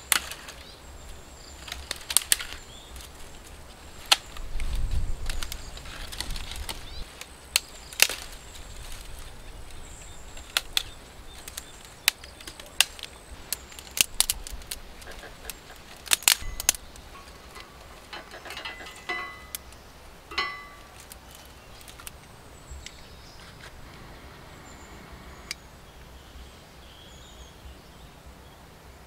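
Dry sticks and twigs snapped by hand: a run of sharp cracks at irregular intervals, with rustling as branches are dragged from a brush pile. The snapping thins out over the last several seconds.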